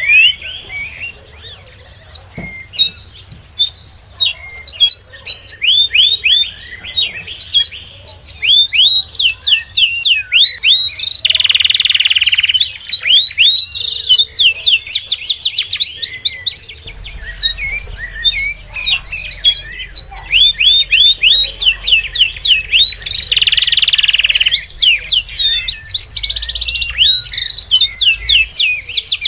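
Small birds chirping: a dense run of quick, high chirps, many each second, with a short lull about a second in.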